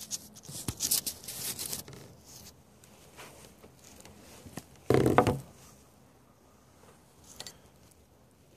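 A piece of cloth being cut for a shoe patch: a run of quick snips and rustles over the first couple of seconds, a louder brief bump about five seconds in, then only faint small clicks.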